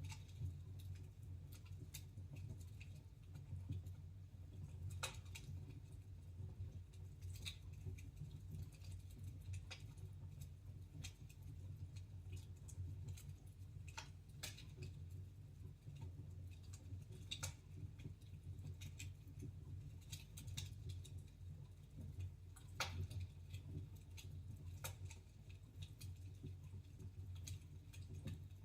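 Wood fire crackling in a fireplace: irregular sharp snaps and pops, a few every several seconds, over a low steady rumble of the burning.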